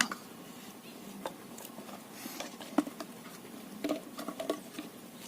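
Scattered light taps and clicks over a low steady background, with a few short, dull knocks near the end.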